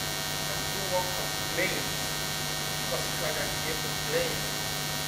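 Steady electrical mains hum.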